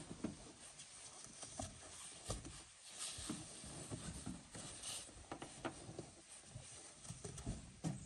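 Faint, scattered taps and scuffs as a rubber chimney flashing boot is handled and pressed against corrugated steel roofing panels.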